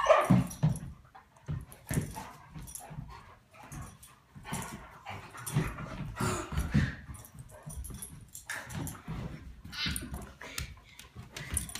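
A Great Dane puppy and a Komondor play fighting: a string of short, irregular yips and whines over the scuffle of their paws and bodies.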